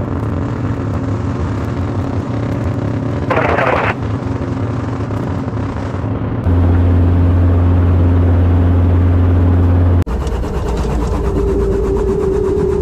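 Light helicopter's engine and rotor drone heard from inside the cockpit, steady and loud, with abrupt jumps in level and pitch about six and a half and ten seconds in. A brief higher-pitched sound rises over the drone about three seconds in.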